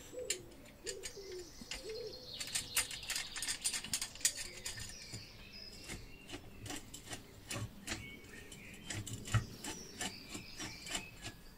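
Screwdriver and screws clicking and scraping on the metal burner plate of a camping stove, many short clicks throughout. Birds call in the background: low, arching calls in the first two seconds, higher warbling calls in the second half.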